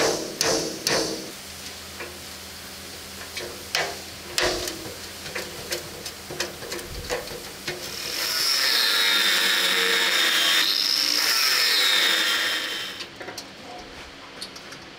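Scattered metallic knocks and clanks with brief ringing as a rusted perforated steel panel is worked by hand and with a hammer. About eight seconds in, an angle grinder cuts loudly for about five seconds, its pitch dipping and recovering under load, then stops and the light clanking resumes.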